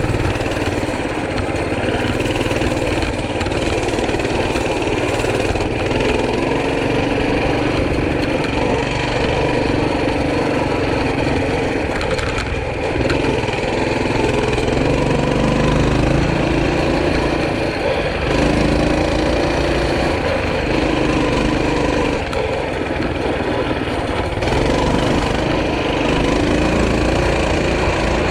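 Small off-road trail bike (Tote Gote) engine running continuously, its speed rising and falling as it is ridden.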